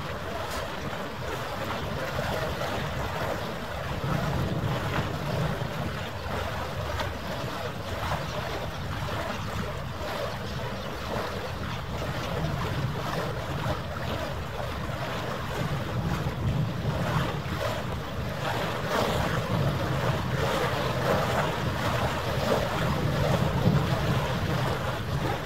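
Wind buffeting the microphone over harbour water lapping, a steady rushing with gusty low rumbles that swell now and then and grow a little louder near the end.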